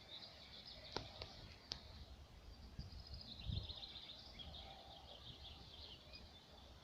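Faint songbirds chirping, with a longer high trill through the middle. Three sharp clicks come about a second in, over a low uneven rumble.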